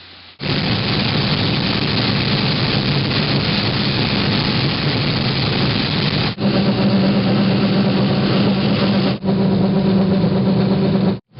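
Combine harvester running steadily while harvesting corn, a loud, even engine and machinery drone with a low hum. It breaks off briefly twice and then once more near the end.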